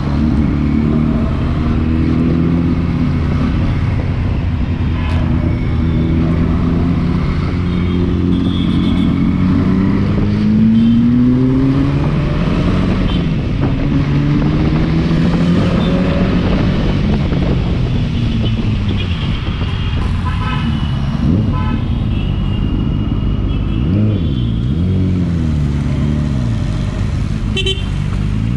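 Motorcycle engine heard from on the bike while riding in traffic, its pitch climbing and dropping again and again as it accelerates and shifts gears, over a steady rumble of wind and road. Vehicle horns honk now and then, mostly in the second half.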